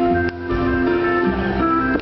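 Instrumental music with sustained notes, the accompaniment to a staged kung fu performance.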